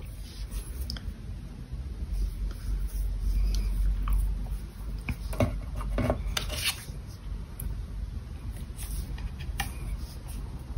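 Quiet handling of a paper gift tag and white baker's twine as the twine is threaded through the tag's hole and tied: light rubbing and rustling, with a few small taps.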